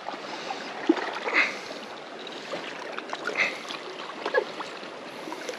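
Steady rush of river water along a rocky bank, with a few small splashes and clicks.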